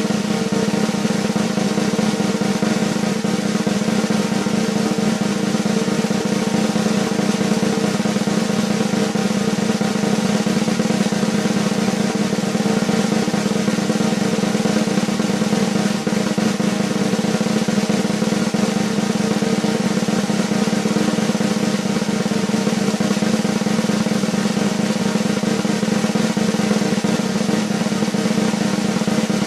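A steady, unbroken snare drum roll.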